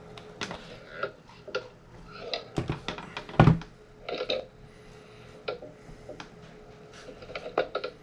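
Handling noise from an iPad in a rugged case on a wooden tabletop: a run of light clicks and knocks, with a louder thud about three and a half seconds in as the tablet is set down, over a faint steady hum.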